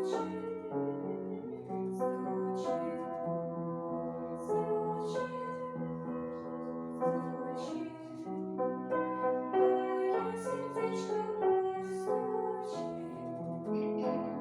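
Instrumental music of a children's song: sustained keyboard-like chords and melody notes over light percussion hits.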